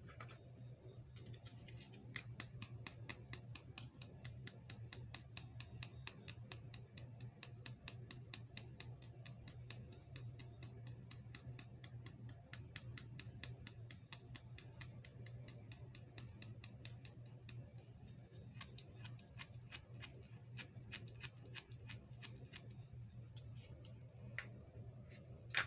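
Faint, rapid small clicks, about five a second and very even, from handling small toy parts. They thin out to scattered clicks after about two-thirds of the way through. A steady low hum runs underneath.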